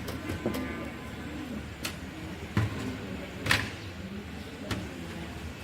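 Clicks and knocks from a desktop computer case being handled and opened, about five separate sharp taps spread over a few seconds, with a low background noise underneath.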